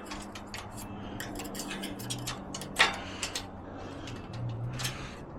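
Flathead screwdriver prying at a stuck gate latch: a run of small metal clicks and scrapes, with one louder clack about three seconds in.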